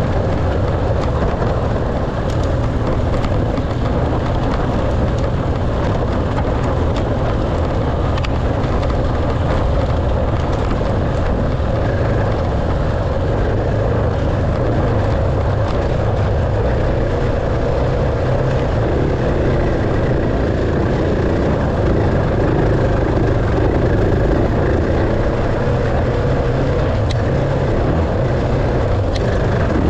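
Enduro dirt bike engine running while riding, a steady rumble at an even level throughout.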